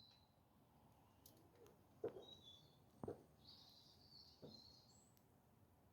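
Faint bird chirps with three soft knocks, about two, three and four and a half seconds in.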